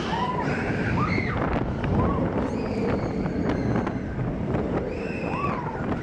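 Expedition Everest roller coaster train rolling through a dark tunnel, a steady rumble and rush of air, with short high squeals that rise and fall over it every second or so.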